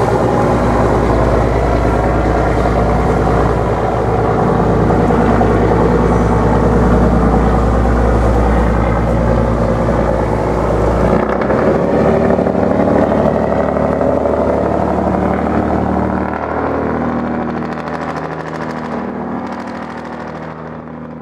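Tug's engine running steadily as the boat breaks through river ice, with a deep rumble that drops away about halfway through; the sound then fades as the boat moves off.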